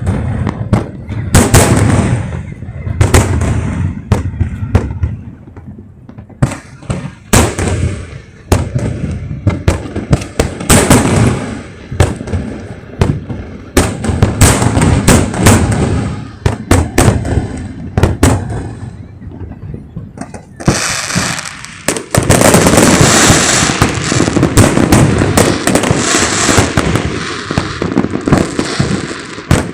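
Aerial fireworks bursting at close range: a rapid run of sharp bangs and deep booms, then from about three quarters of the way in a dense, continuous crackling barrage.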